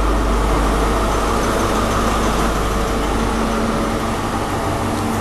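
Class 43 HST diesel power car running loudly as it pulls into the platform and passes close by, a steady heavy engine rumble. The deepest part of the rumble eases about four seconds in as the power car moves past and the coaches follow.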